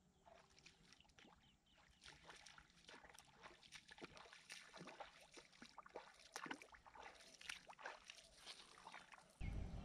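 Faint, irregular splashing and small clicks of water being disturbed. A louder low rumble starts suddenly near the end.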